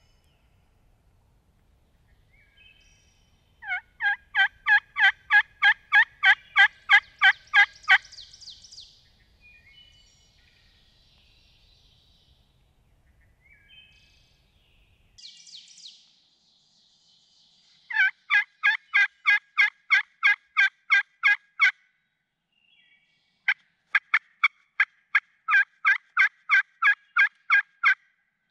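Three long runs of hen turkey yelps, about three to four notes a second, sounded loud and close on a friction turkey call worked with a striker. The first two runs end in a short scratchy rasp.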